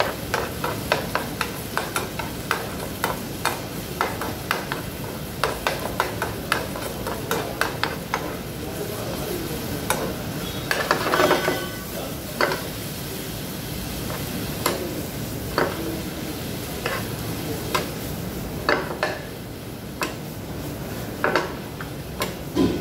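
A spoon scraping and knocking against a frying pan as egg and vegetables are stir-fried over a steady sizzle. About eleven seconds in, the pan is tossed, bringing a louder rush of sizzling and clatter.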